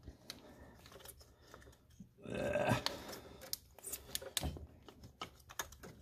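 Scattered light clicks and plastic rattles of an ignition coil and its connector being worked loose by a gloved hand on a 2007 Range Rover's 4.2-litre supercharged engine, which is not running. A louder rustle comes about two and a half seconds in.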